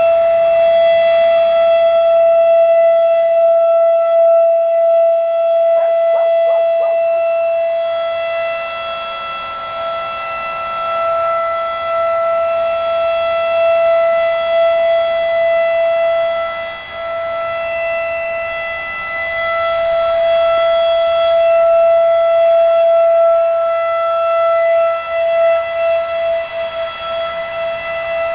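Federal Signal Thunderbeam RSH-10 electronic outdoor warning siren sounding its Full Alert: one steady, unwavering tone. As the rotating siren head turns, the tone swells and fades slowly over many seconds.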